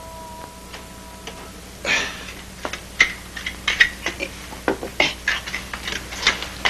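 A run of light, irregular clicks and knocks, several a second, starting about two seconds in. Before that there are faint held tones.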